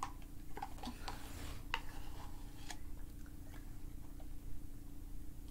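A metal spoon clicking and scraping lightly against a yogurt cup while yogurt is eaten: several small, sharp clicks in the first couple of seconds, sparser after that.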